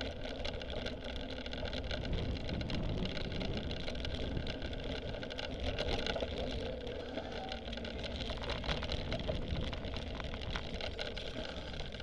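Steady rumble of wind and riding noise on a camera mounted on a cyclocross bike ridden over grass, with scattered rattles and clicks from the bike later on.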